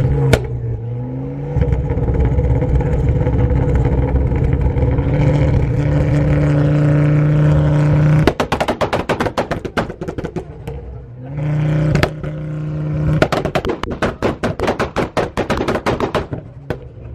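Tuned Ford hatchback's engine revved hard and held high, then a rapid string of sharp exhaust pops and bangs as it drops off. It is revved again about two thirds of the way through, followed by another long run of crackling pops.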